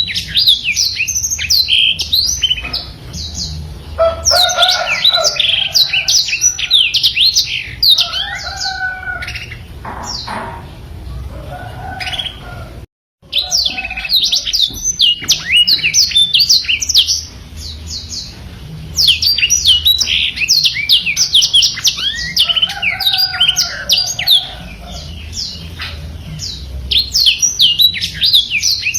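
Black-throated canary (blackthroat) singing a long, rapid song of high chirps and trills, with lower warbling notes mixed in at times. The sound cuts out for an instant about 13 seconds in, then the song carries on.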